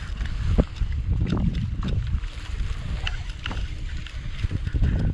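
Wind rumbling on the microphone on a kayak at sea, with choppy water splashing around the hull and scattered small knocks.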